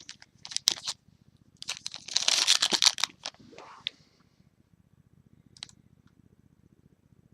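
Crinkling and tearing of trading-card pack wrapper being handled, in two rustling bursts over the first three seconds and a softer rustle near four seconds, then only a faint low hum.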